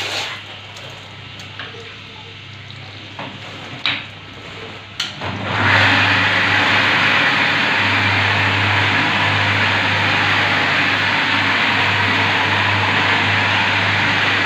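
Marble polishing machine: for the first few seconds only a low motor hum and a few sharp knocks and clicks are heard. About five and a half seconds in, it turns loud and steady, the spinning polishing pad hissing and grinding on the marble tile over the motor's hum.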